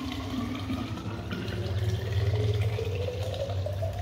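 Water poured in a steady stream from a stainless-steel kettle into a narrow-necked glass bottle, the filling tone rising in pitch as the bottle fills up.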